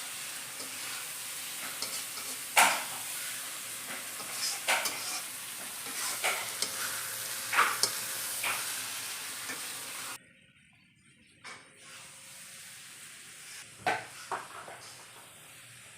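Food sizzling in a hot pan, stirred with a spatula that scrapes and clicks against the pan every second or two. About ten seconds in the sizzling cuts off suddenly, leaving fainter clinks.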